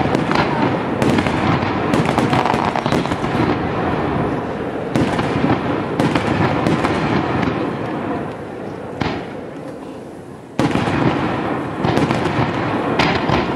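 Fireworks display: aerial shells bursting one after another, a dense run of booms and crackle. It thins out and fades a little after eight seconds, then a sudden loud burst comes about ten and a half seconds in and the barrage picks up again.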